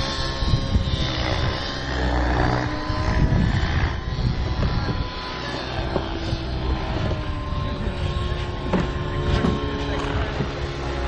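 A radio-control model Zero's fuel-burning engine and propeller running in flight, its note drifting up and down in pitch as the plane manoeuvres overhead.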